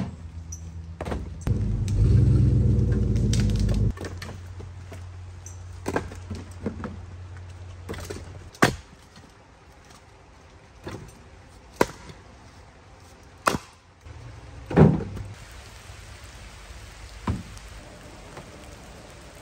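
Split firewood being tossed onto a stack in a pickup truck's bed, each piece landing with a sharp wooden knock, about eight in all. A low steady rumble runs under the first eight seconds, loudest from about two to four seconds in.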